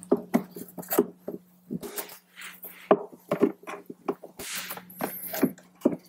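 Irregular clicks, knocks and rustles of hands working speaker wiring and zip ties inside a plastic motorcycle saddlebag lid, over a steady low hum.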